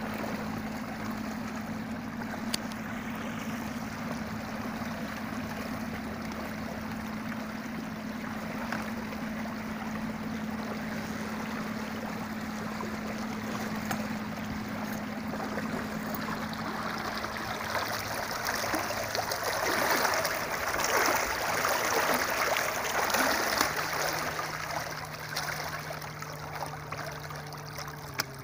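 Water rushing and splashing along the hull of an inflatable boat under way, over the steady low hum of a Fisher 55 electric trolling motor. The splashing grows louder for a few seconds past the middle, and near the end the motor's hum changes to a different pitch.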